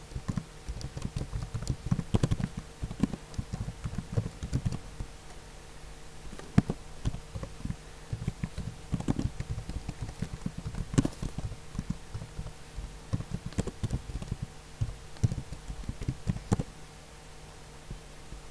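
Typing on a computer keyboard: irregular runs of key clicks with short pauses, stopping near the end, over a faint steady hum.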